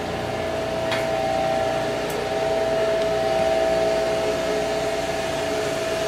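Steady mechanical whir with a constant whine from boiler-room machinery running, with two faint ticks about one and two seconds in.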